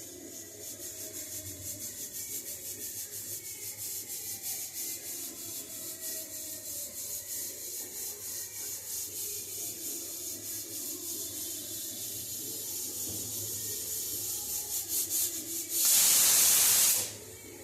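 Rhythmic scraping, about three strokes a second, followed near the end by a loud hiss lasting about a second.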